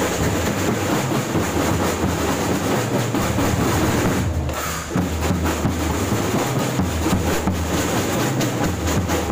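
Marching drum band of bass drums and snare drums beating continuously, loud and close to the microphone, briefly dropping away about four and a half seconds in.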